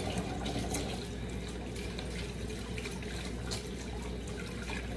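Kitchen tap running into a sink while hands are washed under it: a steady rush of water.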